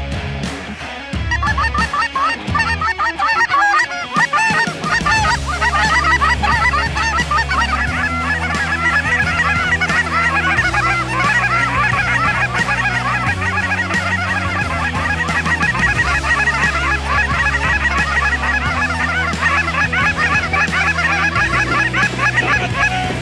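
A large flock of cackling geese calling all together, a dense chorus of high yelping honks that builds about a second in and thickens after about five seconds, over background music with low, steady bass notes.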